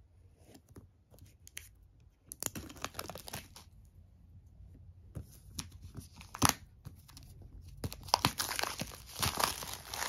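Thin plastic shrink-wrap being cut and peeled off a cardboard box, crinkling and tearing. It is faint for the first two seconds, then louder, with a few sharp snaps.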